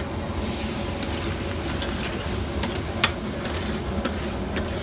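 Raw meat cubes sizzling in hot oil on a large flat steel griddle, a steady sizzle with scattered sharp clicks of a metal spatula against the griddle.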